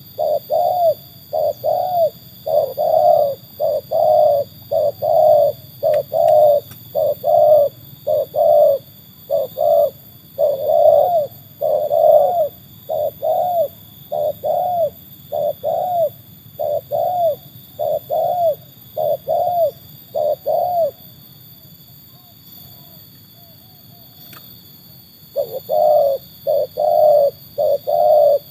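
Spotted dove (tekukur) cooing in a long, rapid string of short arched coos, about one and a half a second, breaking off about 21 s in and starting again some four seconds later.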